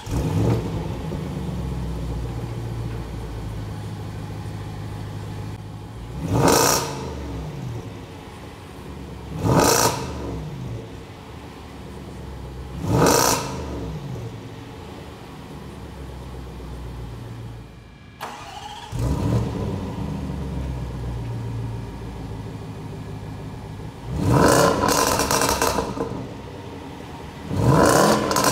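2020 Range Rover Sport Supercharged engine, running Velos Stage 2 tune software, flaring up just after starting, settling to idle, then taking three short throttle blips a few seconds apart. After a brief drop in sound about 18 seconds in, it flares up and idles again, then takes two longer revs near the end.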